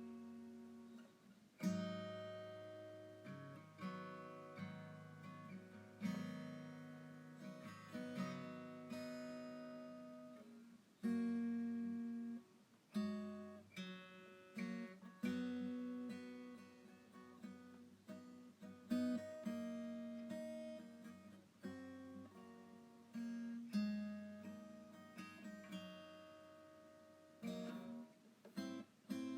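Background music: acoustic guitar, plucked notes and strummed chords, each ringing out and fading.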